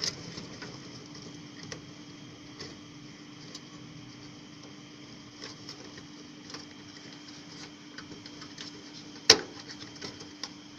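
Small scattered clicks and taps from handling computer parts, over a steady low hum. One sharp, loud click comes about nine seconds in.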